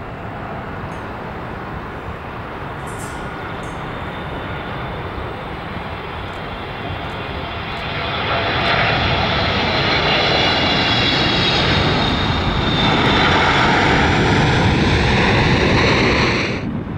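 Boeing 777 freighter's twin GE90 turbofan engines on landing: jet noise swelling as the aircraft crosses the runway threshold and touches down, with a high whine sliding slowly down in pitch. The sound cuts off abruptly near the end.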